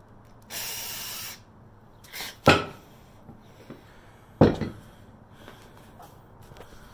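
Two loud clanks of loaded iron weight plates on a strap-handle lift, about two seconds apart, after a short hiss near the start.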